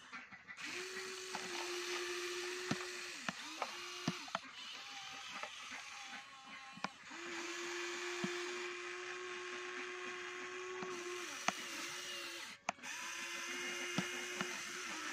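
Small electric motors of a remote-control toy excavator whining as the boom and bucket move, starting and stopping in spells of a second to a few seconds, with a few sharp clicks in between.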